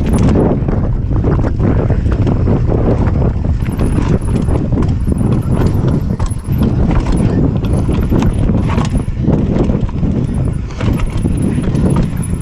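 Mountain bike descending rough dirt singletrack: steady wind rumble on the camera microphone, with constant rattling and knocks from the bike as it runs over rocks and ruts.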